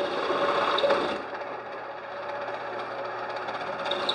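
Delta Rockwell 15-120 ram-type radial drill press running on its one-horsepower motor while a self-centering chamfering tool cuts the edge of a hole in a wheel spacer. The sound is louder for about the first second, then settles to the steady run of the machine.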